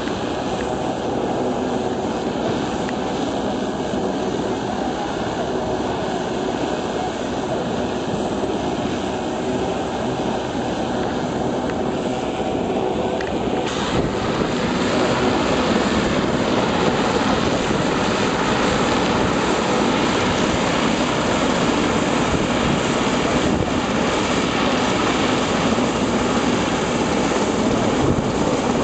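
Scale-model Sea King helicopter running on the ground with its rotors turning: a steady engine and rotor drone that grows a little louder and brighter about fourteen seconds in.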